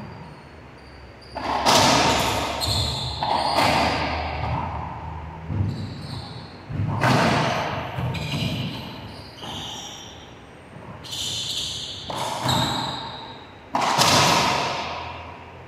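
Racquetball rally: the hollow rubber ball cracks off racquets and the court walls about every one to two seconds, each hit ringing with a long echo in the enclosed court. Short high squeaks of court shoes on the wooden floor come between the hits.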